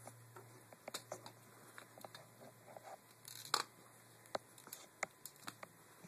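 Handling noise: scattered light clicks and taps, the loudest about three and a half seconds in, over a faint steady low hum.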